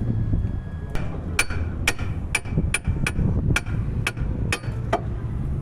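Hammer striking metal about ten times, roughly two blows a second, each blow ringing, starting about a second in, over a steady low hum.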